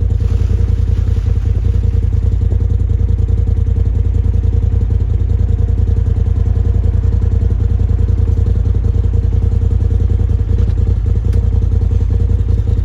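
A vehicle engine running steadily at constant speed, heard close up, with a fast low pulsing and a steady hum.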